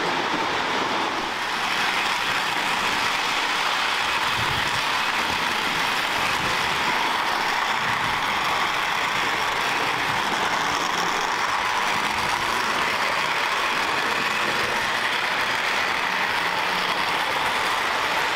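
Lionel O gauge model trains running on three-rail track: the Southern Crescent steam locomotive and its passenger cars pass with a steady rumble and clatter of metal wheels and motor.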